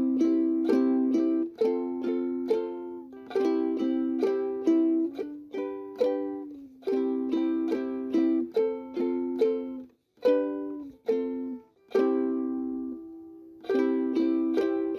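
Background music: a light, bouncy tune of plucked notes, each fading quickly, with a couple of short pauses partway through.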